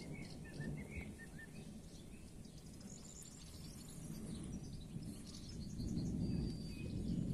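Distant thunder rumbling low, dying down and then swelling again in the last couple of seconds, while small birds chirp and twitter.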